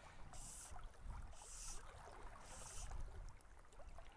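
Fly line being stripped in by hand through the rod guides, a soft hiss about once a second, over a faint low rumble of river flow.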